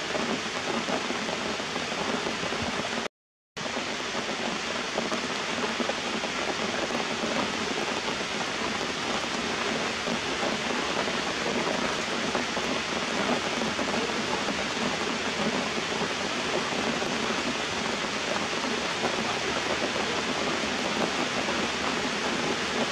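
Steady rain falling on leaves and rocks, an even hiss that drops out completely for about half a second around three seconds in.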